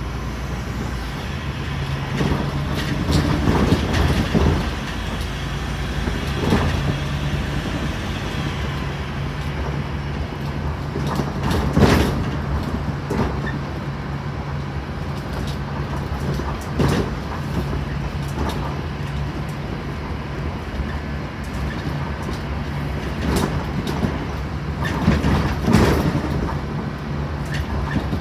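Scania N270UD OmniCity double-decker bus under way, heard from the upper deck: a steady drone from its five-cylinder diesel engine, broken by irregular rattles and knocks from the body and seats, the sharpest near the middle.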